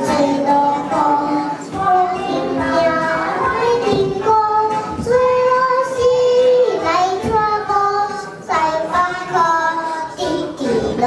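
Young children singing a song together into stage microphones, with a long held note about halfway through.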